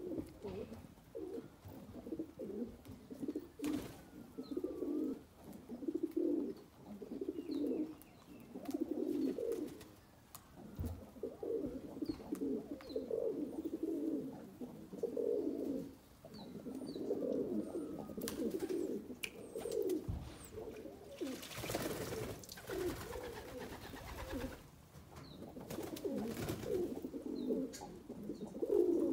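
A flock of racing pigeons cooing, with low rolling coos from several birds overlapping one after another. About three quarters of the way through, a rushing noise lasts a few seconds.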